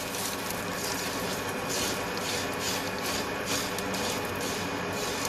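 A black spatula stirring and scraping dry, ghee-coated vermicelli around a non-stick frying pan as it roasts: a steady rustling scrape in repeated strokes, about two or three a second.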